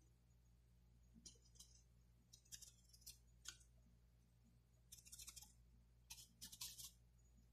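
Faint, short scratchy strokes of a paintbrush working acrylic paint on a palette, in small clusters over several seconds, over a low steady hum.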